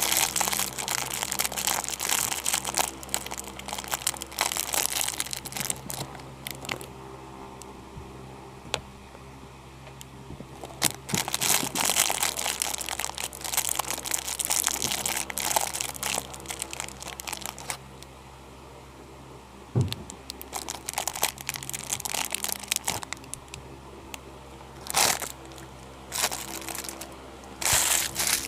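Sticky slime being squeezed and worked by hand, crackling and clicking in bursts, busiest in the first several seconds and again around the middle, with a few louder sharp crackles near the end.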